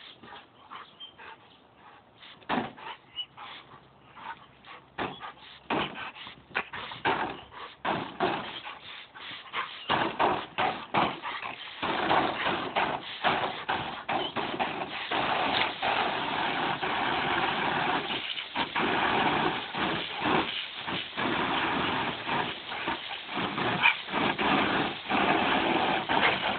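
Garden hose spraying water onto a wet dog as it snaps and bites at the stream, with irregular splashes. About halfway through the spray turns louder and steadier, with splashes still breaking through.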